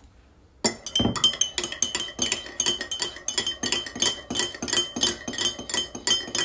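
A spoon stirring creamer into a cup of coffee, clinking against the side of the cup about five times a second, each tap ringing briefly. It starts about half a second in.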